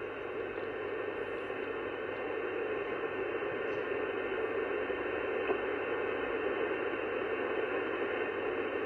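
Steady hiss of band noise from an sBitx transceiver's receiver on the 11-metre band, an open channel with no station coming through. The hiss is cut off above about 3 kHz and grows slightly louder over the stretch.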